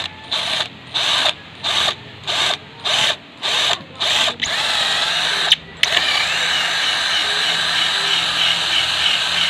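Cordless drill boring into a wooden speargun stock. The trigger is pulsed in about nine short bursts, then held down for a steady run of about five seconds.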